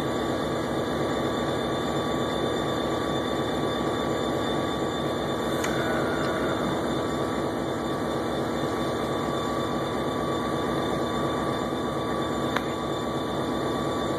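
Rail vehicle's engine running, heard from the cab: a steady drone with several constant tones, with two faint clicks, about six seconds in and near the end.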